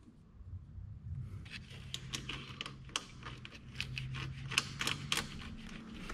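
Light, irregular clicks and taps of hands handling small metal wire terminals and wiring at a bus-bar screw, over a faint steady low hum.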